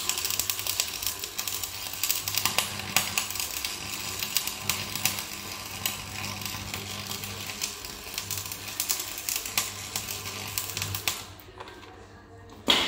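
Electric arc welding with a small portable welding machine: the arc crackles and spits steadily, over a faint electrical hum, and stops about eleven seconds in. A single sharp knock comes near the end.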